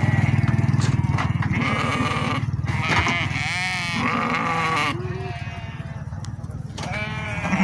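Sardi sheep bleating several times, with one long wavering bleat about three seconds in and another starting near the end. A low engine hum runs under the first few seconds and fades.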